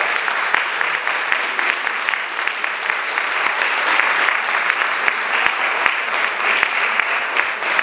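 Audience applauding steadily, a dense patter of many hand claps.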